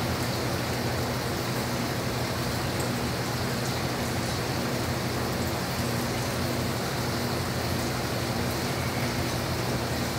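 Steady rain-like rushing of running seawater in a lab aquarium tank, with a low steady hum underneath.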